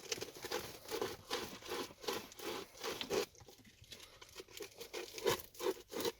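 Hand sanding on the socket opening of a dash trim panel: quick rasping back-and-forth strokes, about three a second, with a short lull in the middle, as the hole is widened to fit a new USB port.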